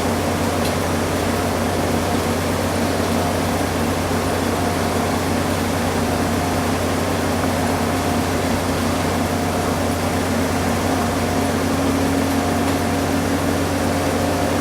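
Front-loading washing machine on its spin cycle: a steady whirring hum with a few faint steady tones above it, holding one speed throughout.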